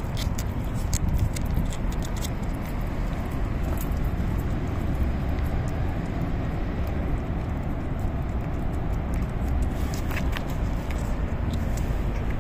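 Cat licking a squeeze-tube cat treat: wet tongue clicks and smacks in the first second or so and again near the end, over a steady low rumble.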